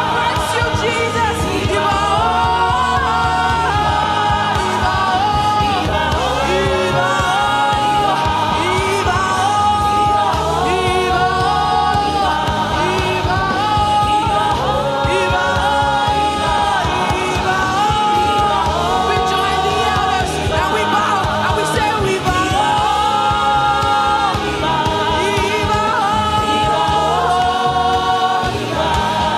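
Gospel worship music with singing voices, a choir or congregation, over a steady band accompaniment.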